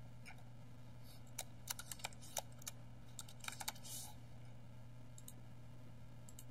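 Typing on a computer keyboard: a quick run of about a dozen keystrokes over roughly three seconds, over a low steady hum. A single faint click follows about five seconds in.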